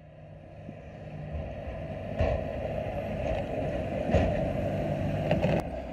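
A heavy vehicle's engine running steadily, fading up at the start. Sharp knocks or clunks sound about two, four and five and a half seconds in.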